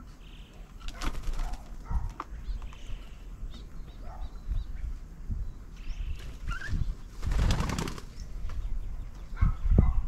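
Spotted doves flapping their wings in several brief flurries, the longest a little past the middle, with a few faint chirps from other birds.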